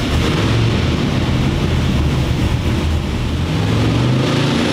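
Eight-cylinder engine running loud and steady on an engine dyno, with a low, rough firing note under a broad rushing noise.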